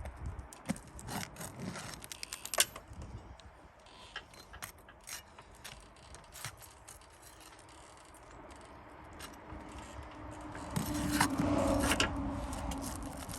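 Metal tool clicking and scraping on asphalt roof shingles while roofing nails are pried out. Near the end a louder rushing sound with a steady hum swells for a couple of seconds.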